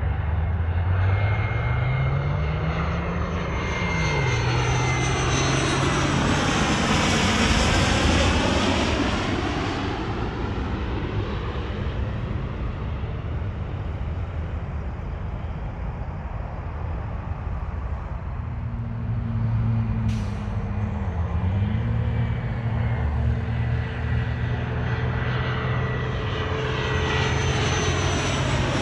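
Jet engines of business jets on landing approach passing overhead. The noise swells to a peak about eight seconds in, fades, then builds again near the end as another jet comes over close.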